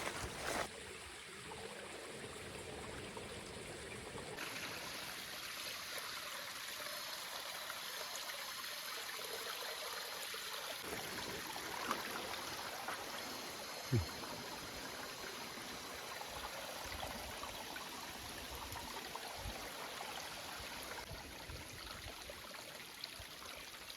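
Steady rushing forest ambience, with a single short knock about fourteen seconds in.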